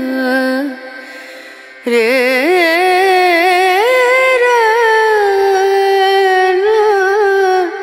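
Music with a solo voice singing long, wavering, ornamented notes. It dips briefly about a second in, then a new, louder sung phrase begins about two seconds in and fades near the end.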